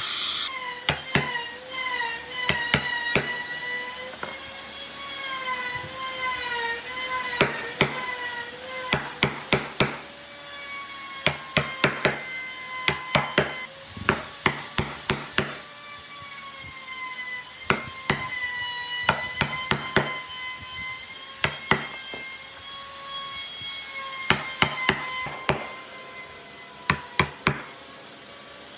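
Hammering on wood: sharp knocks in quick irregular clusters of two to five blows, over a wavering pitched tone.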